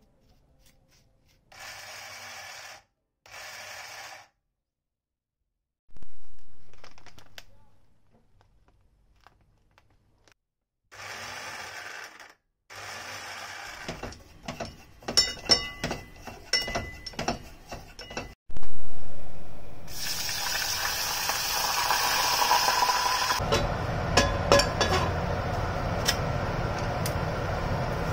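Home kitchen cooking sounds: short bursts of running tap water, a utensil stirring and clinking in a metal pot, and two loud knocks that ring out. From about twenty seconds in, a steady rushing noise with scattered clatter takes over as food goes into a hot oiled frying pan.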